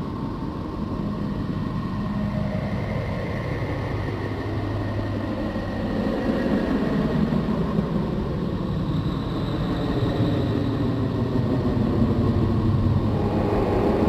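NASA's 'sound of Neptune': spacecraft-recorded radio emissions converted to audio, a steady rumbling drone with faint tones that slowly drift in pitch, growing gradually louder.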